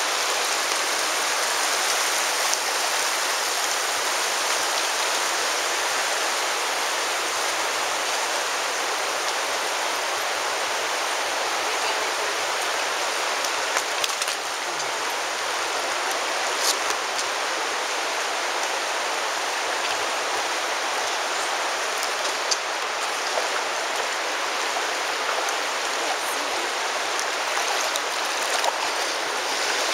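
Virgin River water rushing steadily, with a few brief sharp ticks here and there.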